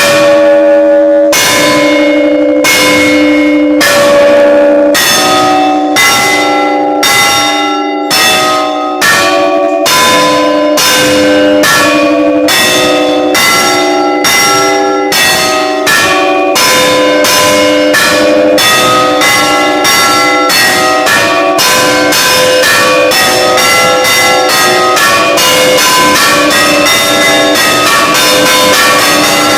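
Church bell ringing loud, one ringing stroke after another, the strokes speeding up from about one a second to two or three a second near the end.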